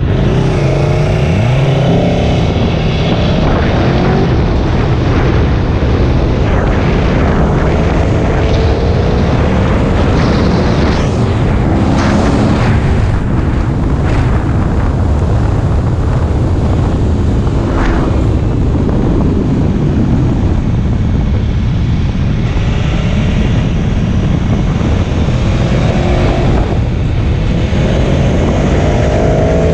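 Aprilia Tuono V4 1100's V4 engine under way, rising in pitch several times as it pulls through the gears, heard under heavy wind buffeting on the microphone at road speed.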